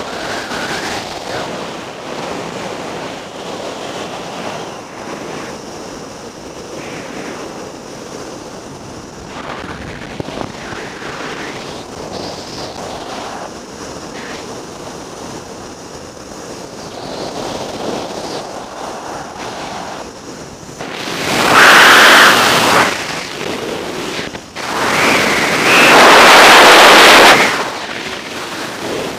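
Freefall wind rushing over the camera's microphone, a steady roar of air. Near the end it swells twice into very loud blasts of wind buffeting, each lasting a couple of seconds.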